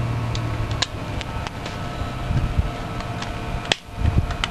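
Homemade 24 V pure sine wave inverter running in standby: a steady low hum with a few fainter steady tones above it, and a few light clicks from handling. The hum breaks off briefly near the end.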